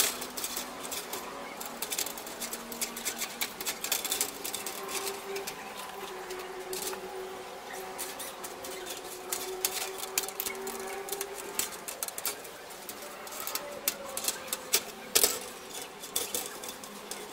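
Wire mesh of a TV antenna reflector being scrubbed with a hand-held pad on a wooden table: quick, irregular scraping and clicking of the wires against the wood, with one sharp knock about fifteen seconds in.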